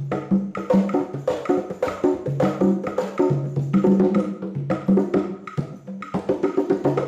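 Live percussion music played on hand drums: a fast, steady rhythm of sharp pitched strikes that grows denser near the end.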